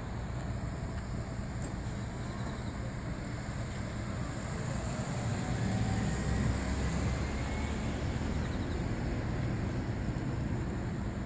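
Cars driving past on a street, a steady low rumble of engines and tyres that swells about six seconds in as a car passes close.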